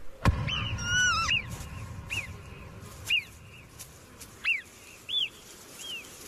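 A sharp knock just after the start, then a run of short, high whistled calls, each one rising and falling, coming at uneven gaps of about a second. They fit the alarm whistles of marmots.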